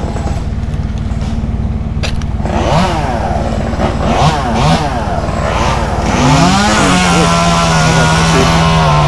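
Two-stroke chainsaw running at idle, blipped up and down several times, then revved up and held at steady high revs for the last couple of seconds.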